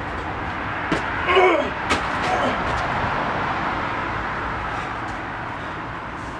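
Trainer-shod feet landing on brick wall tops, two sharp slaps about one and two seconds in, with a short cry between them over a steady traffic hum.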